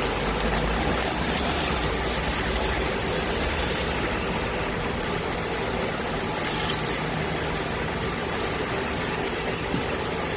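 Water pouring steadily into a pot of chicken and green papaya, topping up the broth.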